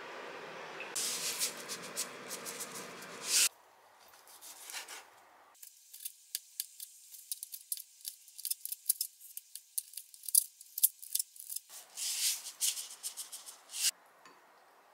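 Chef's knife slicing through crisp-skinned roast pork belly on a plastic cutting board: a quick run of sharp crackling crunches as the blade breaks the skin, starting about five seconds in. Before it comes a steady hiss with light clicks.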